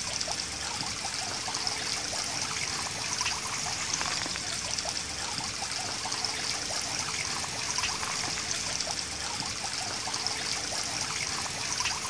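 Water from a garden pond's stream trickling steadily.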